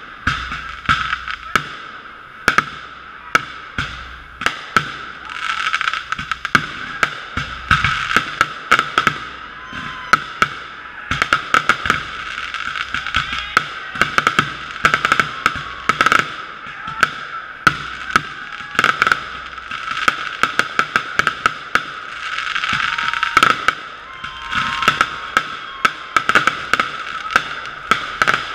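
Consumer fireworks going off: a rapid, irregular run of sharp bangs from aerial shells over continuous dense crackling, with a few short whistles. The sound is muffled and boxy, recorded through a sealed GoPro waterproof housing.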